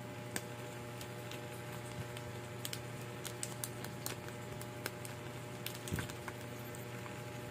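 Light scattered clicks and taps of an SJCam battery being pushed and fiddled into the plastic slot of its dual charger, with a soft knock about six seconds in. The battery won't seat because it is upside down. A low steady hum runs underneath.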